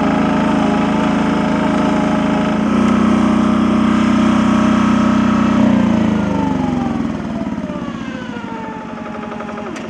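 A small work machine's engine runs steadily with a high steady whine, which the driver takes for a loose drive belt squealing. About six seconds in it throttles back: the pitch falls and the sound fades.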